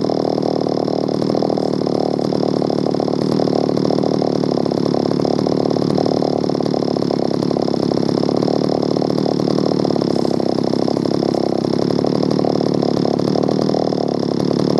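Solo 616 VA chainsaw's two-stroke engine idling steadily with a fast, even pulse.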